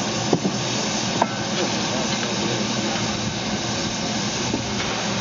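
Steam hissing steadily from low around the front end of NSW 36 class steam locomotive 3642, with a few sharp knocks, the clearest about a third of a second in and just over a second in.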